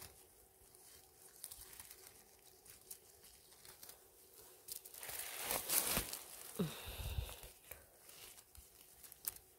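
Rustling and crinkling of dry leaf litter and handling noise as funnel chanterelles are picked by gloved hands, with a louder spell of rustling about five seconds in.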